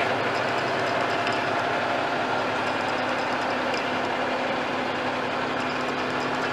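Paccar PX-6 inline-six diesel of a Peterbilt truck idling steadily, heard from inside the cab.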